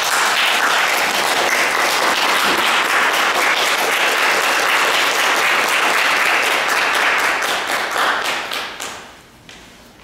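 Audience applauding, many hands clapping at once, tapering off and dying away about nine seconds in.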